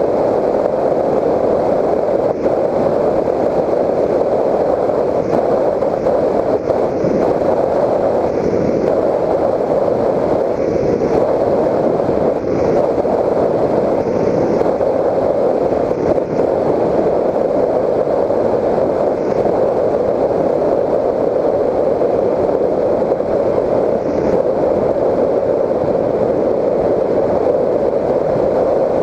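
Steady, muffled rushing drone of the Raptor 1600 FPV plane in flight, as heard by its onboard GoPro Hero 3: the electric motor, propeller and airflow blended together, with a few brief dips.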